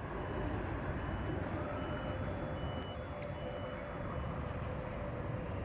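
Steady low rumble with a short high beep repeating at an even pace, a little more than once a second, and a faint steady hum.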